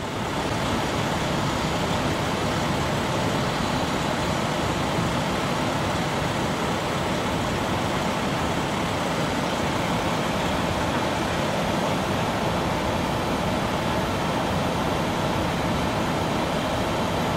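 Steady, unchanging rush of vehicle noise, an even rumble and hiss with no breaks or changes.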